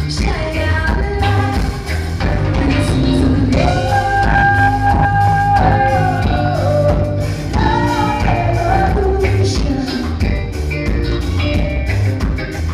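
Live band playing: a woman singing lead over electric guitar, bass and a drum kit, holding long notes about a third of the way in.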